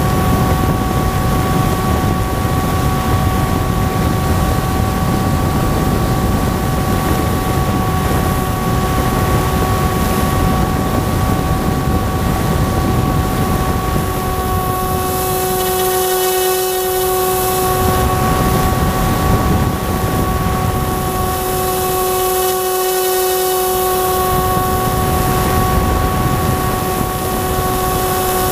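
The electric motor and propeller of an FPV radio-controlled plane whining steadily in flight, heard from the onboard camera with wind rumbling on the microphone. Twice, for about two seconds each in the second half, the wind rumble drops away and a hiss comes up while the motor whine holds steady.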